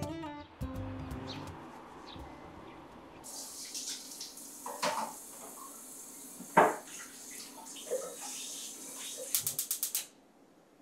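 Kitchen tap running into the sink, with crockery clinking and knocking under the water, one knock louder than the rest. A quick run of small clicks comes near the end, then the water cuts off.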